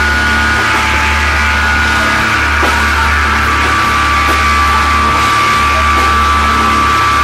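Loud psychedelic rock music: a dense, steady wall of sound with a low droning bass and long held high tones.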